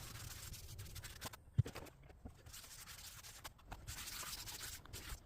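Faint rubbing and scratching, with a soft knock about one and a half seconds in.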